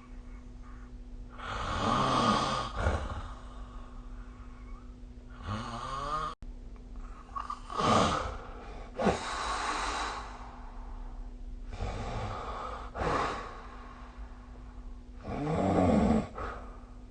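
A sleeping person snoring: about six rasping snores a few seconds apart, some with a pitched, fluttering tone, over a steady low hum.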